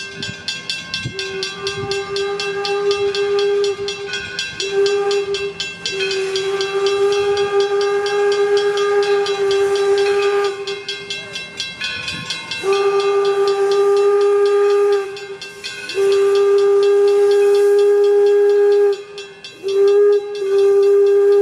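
Whistle of an 1897 Baldwin 4-4-0 steam locomotive, blown as a long series of blasts at one steady pitch, most lasting several seconds with short breaks between them, over a hiss of steam.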